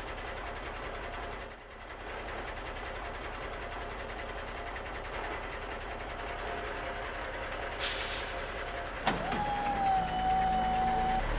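Battery-powered toy cement truck playing electronic truck sounds: a steady engine-like hum, a short hiss about eight seconds in, a click about nine seconds in, then a held tone.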